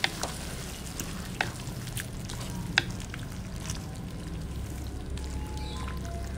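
Shredded vegetables and tempeh sizzling in a pan with freshly added coconut milk, stirred with a spatula. The steady sizzle is broken by scattered clicks and scrapes of the spatula against the pan, the sharpest a little under three seconds in.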